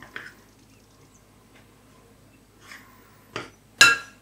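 Spoon working flour into water in a bowl: faint light clicks, then a sharp, ringing clink of the spoon against the bowl near the end.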